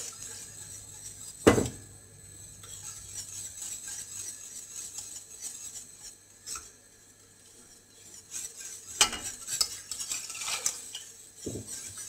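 Wire whisk stirring and scraping in a stainless steel pot of thick tomato soup base, with a few sharp metallic clinks of the whisk against the pot: one about a second and a half in, another mid-way, and several close together near the end.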